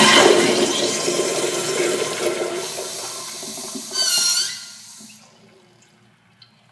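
Urinal flush valve flushing: a sudden rush of water into the bowl that slowly dies away, with a brief high whistling squeal about four seconds in, near the end of the flush.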